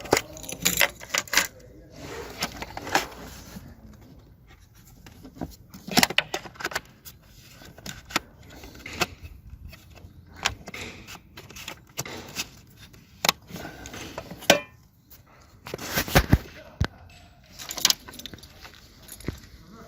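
Irregular clicks, knocks and light metallic jingles from small hard objects being handled, with sharp separate strikes spread through and quieter gaps between them.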